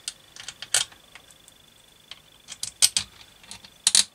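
Small metal bolts clicking and clinking against each other and the cast alloy Husqvarna TC65 crankcase as they are handled and dropped into its bolt holes, in scattered sharp clicks with a quick cluster near the end.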